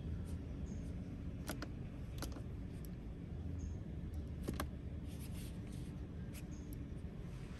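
Fingers clicking and tapping the interior controls of a 2023 Genesis G90: three pairs of short sharp clicks, about a second and a half in, just after two seconds, and about four and a half seconds in, over a low steady hum.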